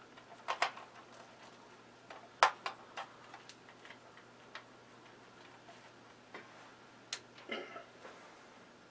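Scattered light clicks and rustles of hands handling a plastic tree topper and its cable on an artificial tree, with one sharper click about two and a half seconds in.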